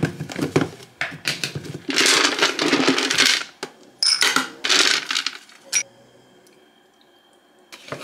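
Dry pet kibble pouring from a plastic container and rattling into a small bowl, in a few bursts of quick clicking, the longest about two seconds in and another about four seconds in.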